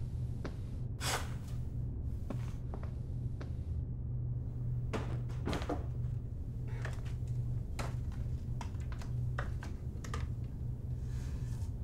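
Irregular knocks and taps on wood, footsteps on a wooden library ladder and bumps against the bookshelves, a dozen or so spread through, the loudest about a second in and at about five and a half seconds. Under them runs a steady low hum.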